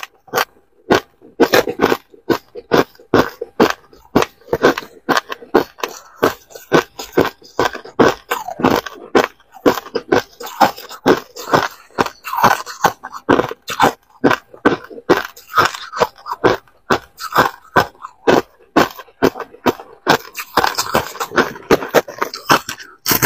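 Frozen crushed ice being bitten and chewed close to the microphone: a steady run of sharp crunches, about three a second.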